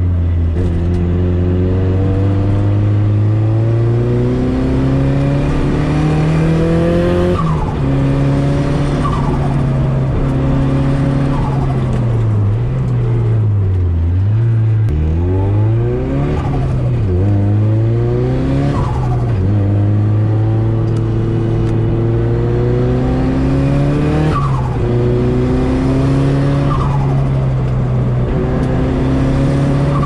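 Nissan S13's turbocharged SR20DET four-cylinder engine pulling hard, heard inside the cabin. Its pitch climbs under load and drops sharply at gear changes, about 7 and 19 seconds in, and around the middle the revs fall and rise several times in quick succession.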